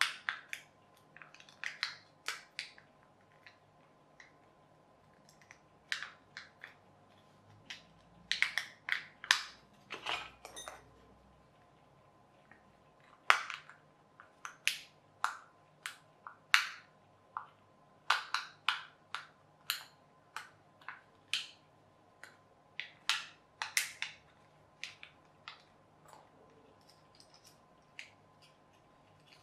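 Irregular sharp clicks and crinkles of thin aluminium tubing being handled and worked by hand, coming in scattered clusters.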